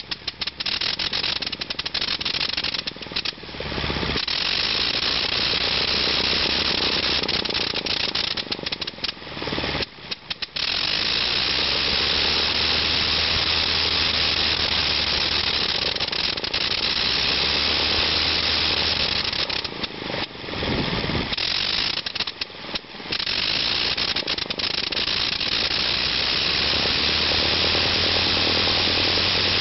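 Le Rhône rotary aero engine running on a ground test run just after starting. The loud, steady run drops away and catches again several times: unevenly in the first few seconds, once about ten seconds in, and twice around two-thirds of the way through.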